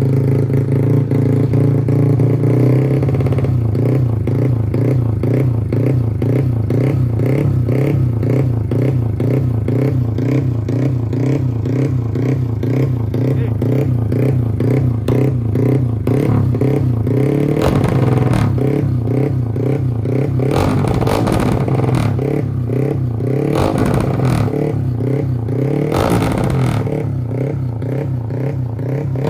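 Modified Honda Nice125 underbone motorcycle engine, bored to 250cc with a four-valve head, running steadily at a fast idle through a loud aftermarket exhaust. A few short broad surges come in the second half.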